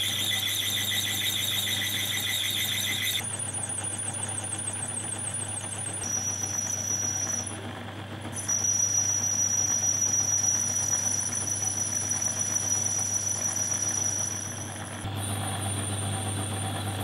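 Metal lathe running and machining a washer, its motor humming low and steady under a high-pitched squeal from the cutting. The squeal jumps to a new pitch several times, with a short dip about eight seconds in.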